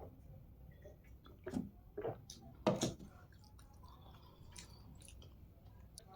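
Close-up mouth sounds of chewing spicy hakka noodles: a scatter of short wet smacks and clicks, the loudest about three seconds in, then softer chewing.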